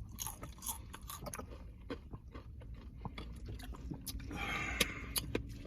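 Close-miked chewing and biting: scattered wet mouth clicks and crunches while eating, with a longer, denser crunching stretch about four and a half seconds in.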